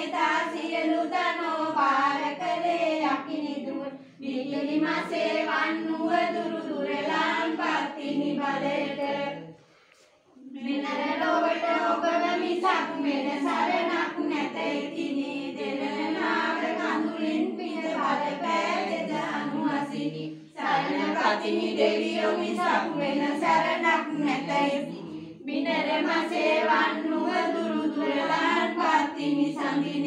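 A group of women singing devotional verses together, unaccompanied, line by line with short breaks between phrases and one longer pause about a third of the way in.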